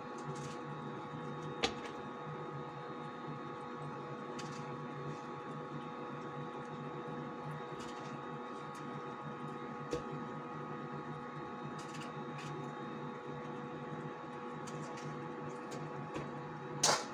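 A steady mechanical hum runs underneath a few soft knocks of tomato pieces dropping into a plastic blender jug, with a louder clatter of the jug being handled near the end.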